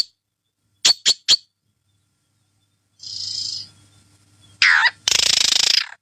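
A pet bird gives three quick, sharp chirps, then after a short hiss a call that falls in pitch and a loud, harsh screech near the end.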